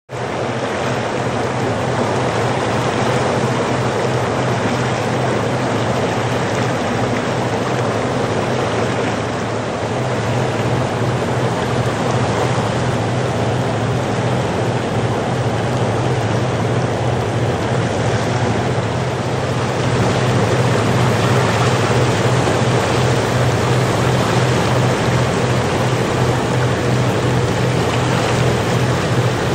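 A small tugboat's diesel engine running with a steady low drone, over the broad rush of tidal rapids. The sound grows a little louder about two-thirds of the way through as the tug comes closer.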